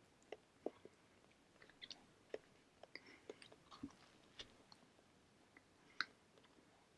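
Faint close-up chewing of a buttered bacon buttermilk pancake English muffin: scattered soft mouth clicks, the loudest about six seconds in.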